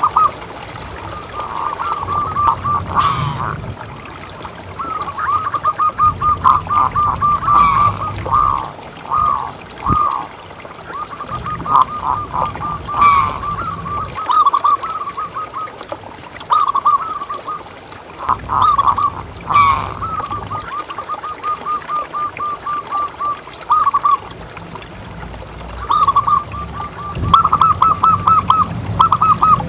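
Zebra doves (perkutut) cooing: phrase after phrase of rapid, staccato rolling notes, with short gaps between phrases. A few sharp clicks sound between the phrases.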